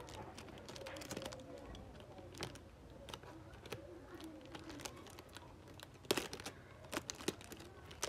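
Hands working at the clear plastic wrapping of small cardboard cable boxes with a pocket knife: scattered light clicks, taps and crinkles, with a few sharper clicks about six and seven seconds in.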